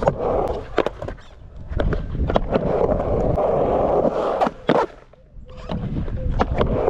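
Skateboard wheels rolling loudly on a concrete quarter pipe, with sharp clacks from the board and trucks. The rolling briefly drops away a little before the five-second mark, then picks up again.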